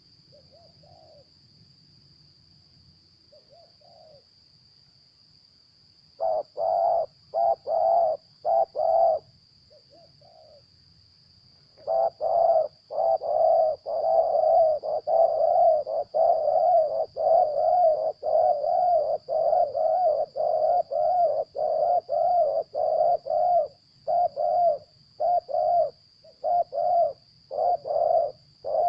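Spotted dove cooing: two faint coos at first, then loud repeated coo notes that run together into a long fast series about halfway through, breaking back into separate coos near the end.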